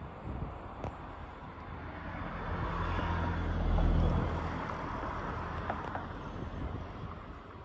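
A vehicle passing by, its engine noise swelling to a peak about four seconds in, then fading away.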